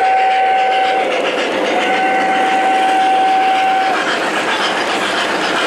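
O-gauge Norfolk and Western Y6b model steam locomotive sounding its electronic steam whistle: one blast ending about a second in, then a longer blast of about two seconds. The train's steady running noise on the track goes on underneath.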